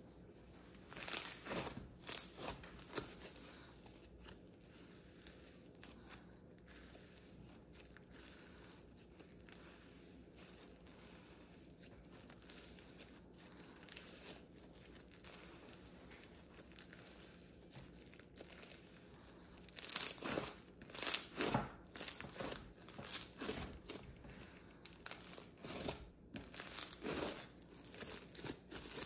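Pink slime being stretched, folded and squished by hand, giving runs of small crackles and pops: a cluster about a second in, a louder run about two-thirds of the way through and another near the end, with quieter squishing between.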